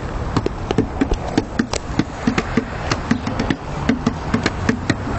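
A rapid, irregular series of sharp clacks and knocks, several a second.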